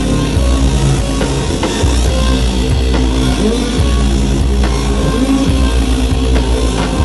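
Loud live band music: a heavy sustained bass line and layered held tones, punctuated by drum hits.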